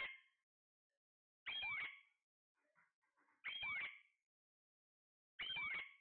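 Alexandrine parakeet calling four times, one short call about every two seconds, each sliding down in pitch.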